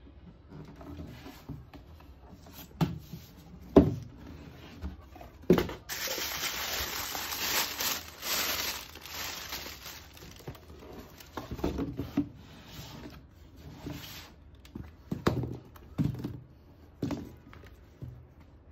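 Cardboard shoebox being handled and opened: a few sharp knocks of the box and lid, then several seconds of tissue paper crinkling, then more scattered rustling and soft bumps as the sneakers are lifted out.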